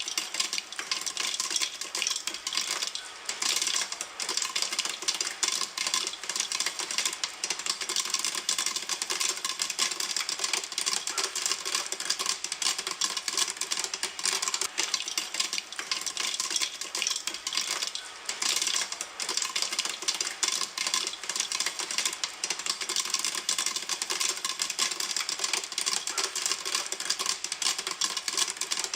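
Popcorn kernels popping in a pan: a dense crackle of many small, sharp pops in rapid succession.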